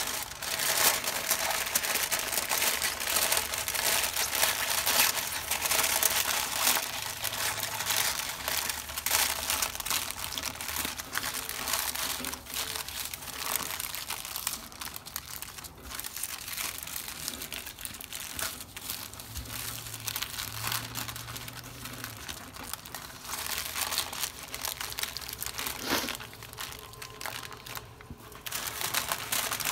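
Two sheets of heavy-duty aluminium foil crinkling and crackling steadily as they are folded and crimped by hand into a packet around a rack of pork ribs. The crinkling is a little quieter in the second half.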